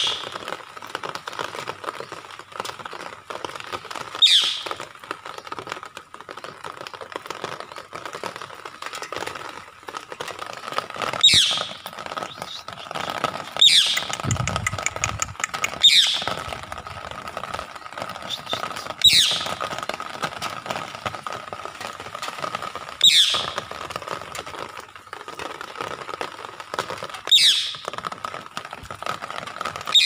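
Caged green parakeet giving short harsh screeches, each dropping in pitch, seven or eight of them a few seconds apart.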